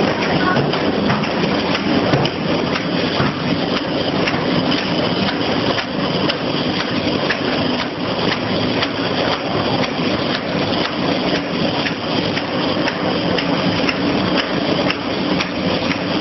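Electric meatball forming machine running steadily: a motor hum with a dense patter of small clicks.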